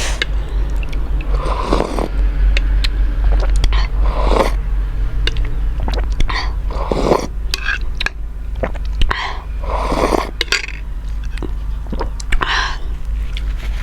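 Close-miked eating of momo with soup: chewing with wet mouth clicks, and a short breathy, noisy burst every two to three seconds, over a steady low hum.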